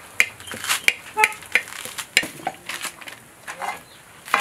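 Coconut husk fibres (coir) being pulled and torn from the shell by hand: a run of sharp, irregular snaps and short rasping tears, several a second, loudest near the end.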